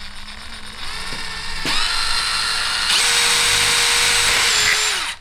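Cordless drill boring a small pilot hole through a fibreglass ladder rail. The motor whine steps up in speed about two seconds in and again about three seconds in, then stops just before the end.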